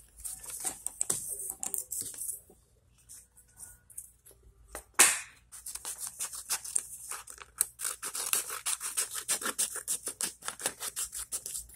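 Sheet of paper rustling as it is handled, then scissors cutting through folded paper in a rapid run of snips from about six seconds in, with one sharp snap just before the cutting starts.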